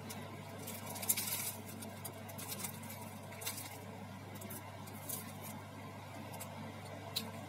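Paper and plastic wrapper around a bread roll crinkling now and then as it is handled, loudest about a second in, over a steady low hum.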